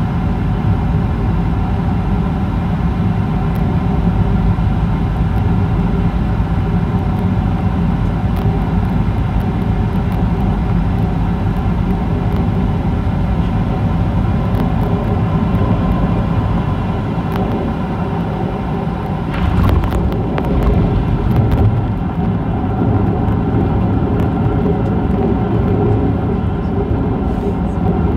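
Jet airliner cabin noise: a steady drone of engines and rushing air during final approach and landing. About two-thirds of the way in there is a louder rumble lasting about two seconds, as the wheels meet the runway and the plane rolls out.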